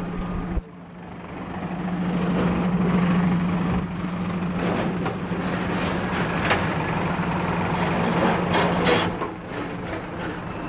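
A heavy engine idling with a steady low hum over general machinery noise. A few brief clicks sound in the second half, and the hum fades out shortly before the end.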